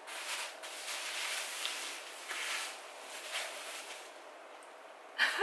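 Rustling of a silky fabric dust bag and the plastic wrapping around a handbag as the bag is pulled out of the dust bag, in irregular swells that die down about four seconds in.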